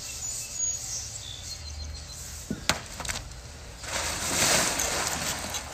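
A couple of sharp knocks, then about a second of splashing as a man slips on the floor of a drained swimming pool and falls into the shallow water left in it.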